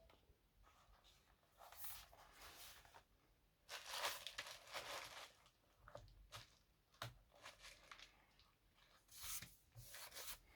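Faint handling noises: a few short bursts of rustling, crinkling or tearing, with scattered small clicks in between.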